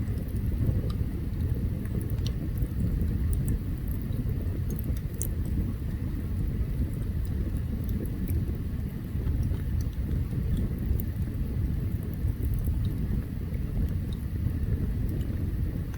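Open campfire burning: a steady low rumble with scattered faint crackles and pops.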